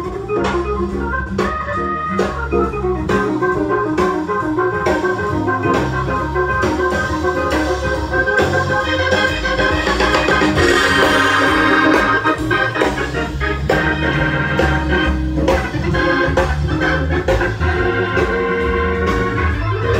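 Keyboard-led music with bass and a steady beat, played through a vintage vacuum-tube hi-fi: a 1957 Realistic amplifier driving an Electro-Voice SP8B 8-inch coaxial speaker in a Gough enclosure.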